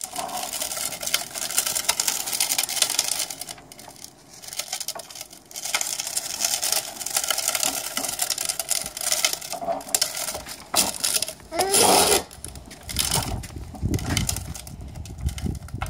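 Hard plastic wheels of a toddler's big-wheel trike rolling and rattling over a concrete patio, in spells with a quieter lull between them. About three-quarters of the way through comes a short wavering squeal, the loudest moment.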